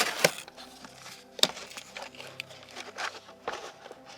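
Soft background music with sustained low notes, with scattered light clicks and rustles over it.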